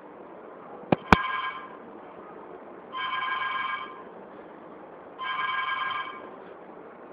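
A phone ringing in three evenly spaced bursts about two seconds apart, over a steady hiss. The first burst comes right after two sharp clicks about a second in.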